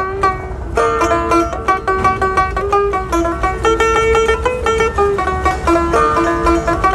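Dotara, the Bengali folk lute, played solo: a quick melody of plucked, ringing notes in a Baul folk tune, with a brief thinning about half a second in before the phrase picks up again.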